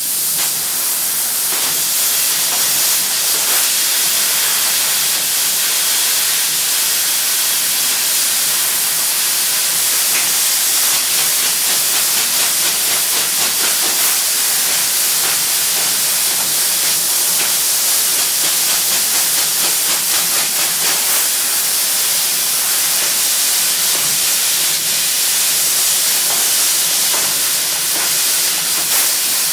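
Mazak Optiplex 3015 fiber laser cutting 1.0 mm zinc-galvanized steel sheet: a loud, steady hiss of nitrogen assist gas jetting from the cutting nozzle, with a fine, fast crackle running through it.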